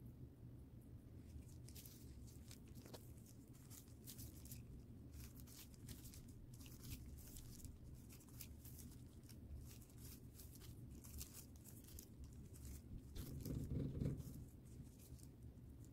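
Faint crinkling and light clicks from hands in disposable plastic gloves folding strips of soft dough over a spooned leafy-green filling, over a low steady hum. A louder rubbing sound comes near the end as the pastry is rolled on the silicone mat.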